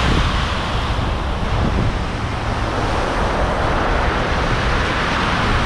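Rough sea surf breaking on the shore in a steady rushing wash, with wind buffeting the microphone in a low rumble.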